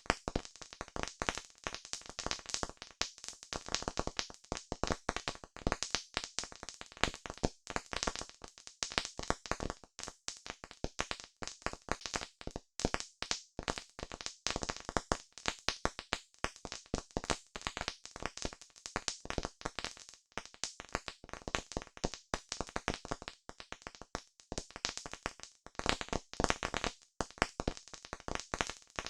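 Campfire crackling: wood burning with a dense, irregular run of pops and snaps.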